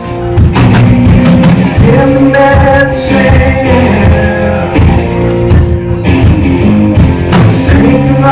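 Live band music: a male singer holding long notes over guitar, with the full band loud from about half a second in.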